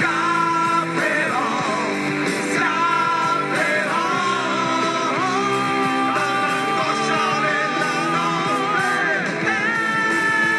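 Live rock band playing, electric guitars, bass, drums and keyboard, with sung vocals holding long, wavering notes over the band.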